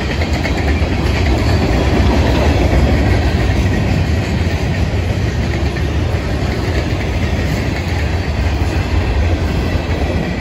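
Florida East Coast Railway freight train's cars (tank cars, gondolas and boxcars) rolling steadily past: a continuous rumble of steel wheels on the rails with a clickety-clack over the joints.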